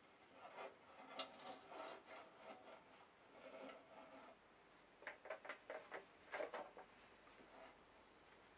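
Faint scraping and light clicks of an aluminium plate being slid and repositioned on a scroll saw table by a gloved hand, with a quick run of sharper clicks about five to six and a half seconds in. The saw is not running.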